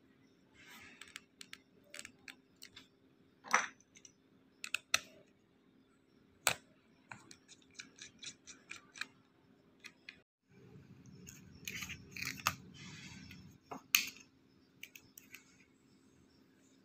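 Small sharp clicks and taps of fingers and plastic parts being handled inside an open laptop, working the battery cable connector and the coin-cell CMOS battery. A quick run of light ticks, about four a second, comes near the middle, and a brief scraping rustle follows a few seconds later.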